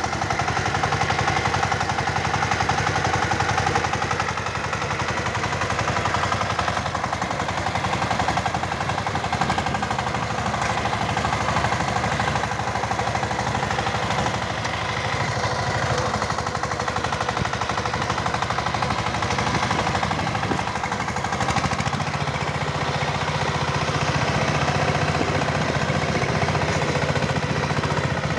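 Power tiller engine running steadily with a rapid, even knocking beat, its low end growing stronger in the last few seconds.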